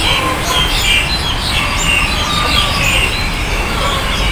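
A chorus of many songbirds chirping and calling at once in dense, overlapping short notes, over a steady low background rumble.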